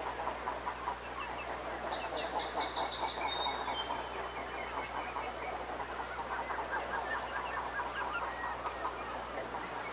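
A flock of waterfowl calling continuously, a dense chatter of many short calls overlapping. A songbird sings a brief, high, rapid phrase about two seconds in.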